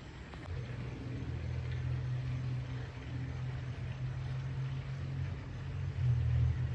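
Aircraft engine drone from a plane passing high overhead: a steady low rumble that comes up about half a second in and grows louder near the end.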